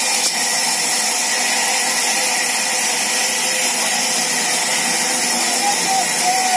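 Large sawmill band saw running and cutting through wood: a steady, loud hiss with no let-up. A short wavering tone rises over it near the end.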